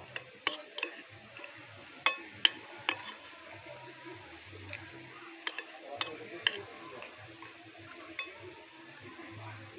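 Metal spoon clinking and scraping against a plate during a meal: a scatter of short, sharp clinks, the loudest about two seconds in and again about six seconds in.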